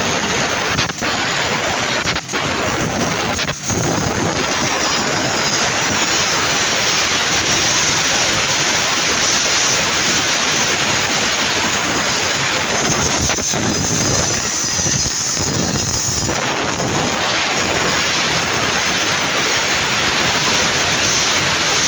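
1 kW CNC fiber laser cutting machine cutting sheet metal: a loud, steady hissing rush from the cutting head and its gas jet. There are a few brief breaks in the first few seconds.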